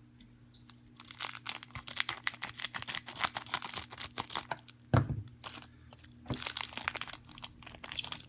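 A Pokémon booster pack's wrapper crinkling and tearing as it is opened by hand, in dense crackly spells starting about a second in. There is a single low knock about five seconds in.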